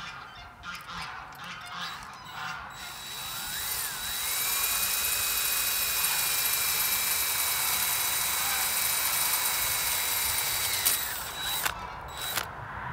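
Cordless drill-driver running: the motor starts about three seconds in, speeds up to a steady whine, runs for about seven seconds and stops suddenly, followed by a couple of sharp clicks.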